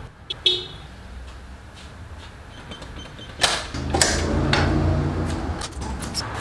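Metal-framed glass entry door being opened, with two sharp clunks of its handle and frame about three and a half seconds in, followed by a low rumble while it swings open. Light footsteps and knocks near the end as someone steps through.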